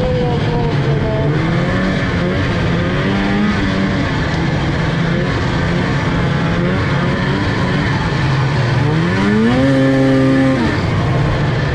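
Snowmobile engine running under way, its pitch shifting with the throttle; about nine seconds in it revs up, holds higher and a little louder for about a second, then drops back.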